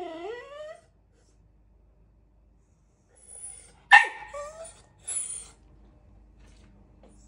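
Small white long-haired dog vocalising at its own reflection in a mirror: a short whine that dips and rises in pitch at the start, then about four seconds in one sharp, loud bark followed by a brief rising whine, and a short breathy huff a second later.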